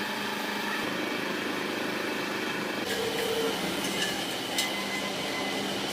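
Steady industrial machinery noise with a constant low hum, and a few sharp metallic clicks from about halfway through.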